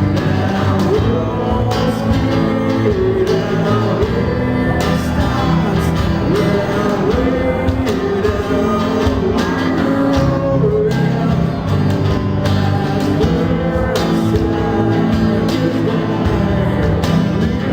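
Acoustic band playing live: strummed acoustic guitars and cajón beats under a man singing the melody.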